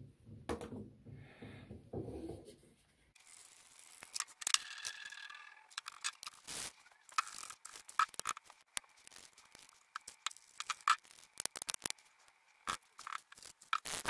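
A plastic bottle handled for the first few seconds, then a metal padlock worked in the hands: a run of sharp clicks and scrapes with short metallic rings.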